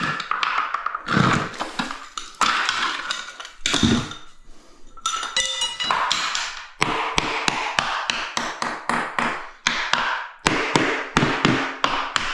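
A hard tool strikes ceramic tiles over and over in quick, irregular runs of sharp taps and knocks, several a second, with a short ringing clatter.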